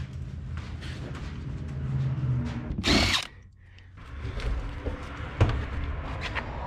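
Hand-held power tool, drill-type, running in short spurts with clicks of tool work between, one burst loudest about three seconds in, over a steady low hum.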